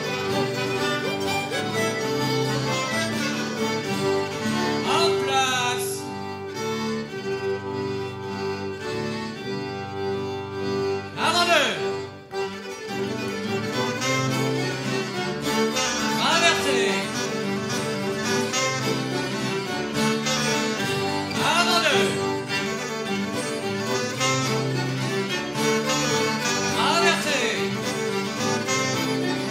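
Instrumental tune for a Breton traditional dance. A swooping glide recurs in it about every five seconds.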